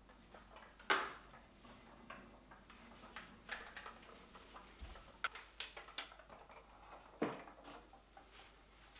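Light clicks, taps and knocks of a small wooden Easter tree and its hanging ornaments being handled and set down, with two sharper knocks about a second in and about seven seconds in.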